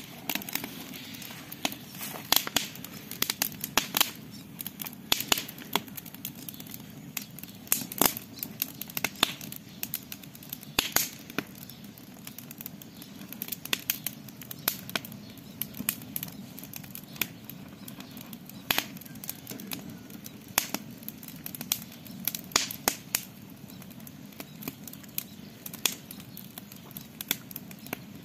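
Wood campfire crackling: irregular sharp pops and snaps, several a second, over a low steady rumble of burning.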